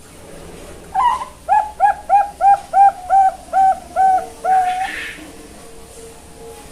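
Young Bangkok perkutut (zebra dove) singing one song phrase. An opening note is followed by a quick run of about nine short, even coos, roughly three a second, ending in one longer held coo.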